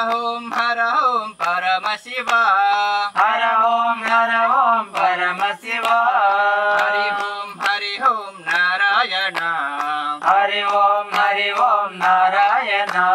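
A group of voices, mostly male, singing a devotional chant together, with sharp hand claps keeping a steady beat.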